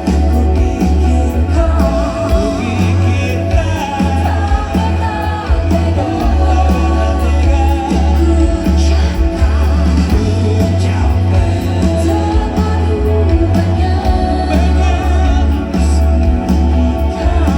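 Live band playing a pop-rock song with singing over a heavy, steady bass.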